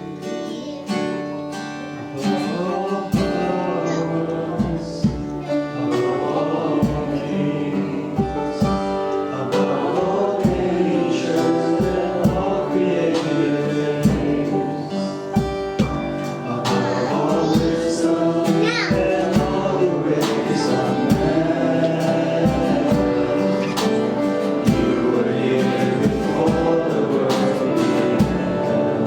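Worship band and singing in a gospel style: voices over guitar with a steady beat, the full band coming in about three seconds in.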